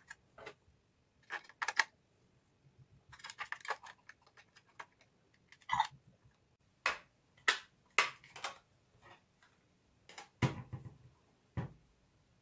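Hard plastic clicks, taps and rattles as the plastic toy dog and its plastic doghouse base are handled and fitted together, with two heavier thumps near the end.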